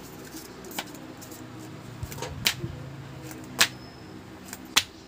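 A child jumping in place, her feet landing with four sharp thumps about a second apart.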